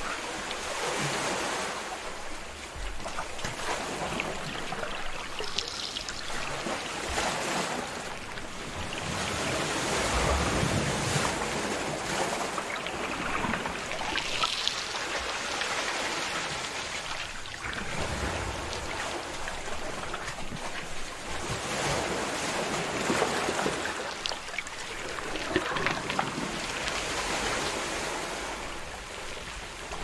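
Sea surf washing and breaking against a rocky shore: a continuous rush of water that swells and eases in repeated surges.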